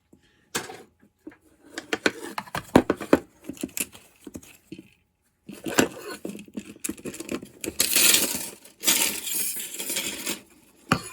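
Small metal parts and tools clinking, clicking and rattling as chainsaw parts are handled at a workbench. A string of separate sharp clicks comes first, then a denser scraping rattle from about six seconds in.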